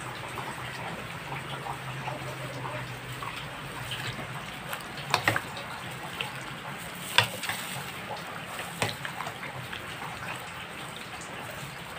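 Buko salad with gulaman cubes and cream being stirred and folded in a stainless steel bowl with two spoons: a soft, steady wet squelching, with a few sharp clinks of spoon on the bowl.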